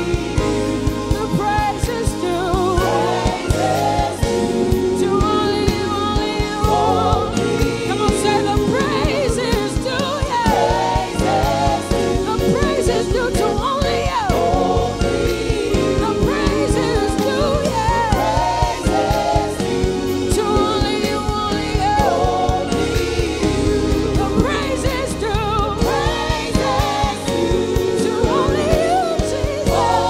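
Live gospel worship music: a woman's lead vocal, sliding and gliding through the melody, over a full band with a steady beat and backing singers.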